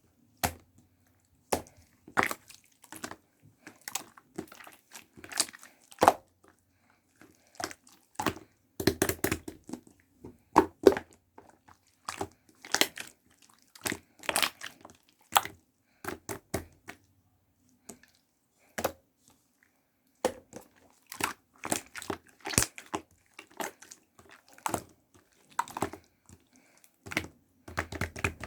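Homemade slime being worked by hand, making irregular sharp clicks and crackles with short pauses between them.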